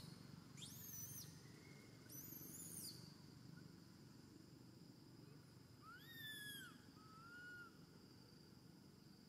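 Baby macaque giving three high, arching coo calls, each under a second long, rising then falling in pitch, over a faint steady high insect-like tone.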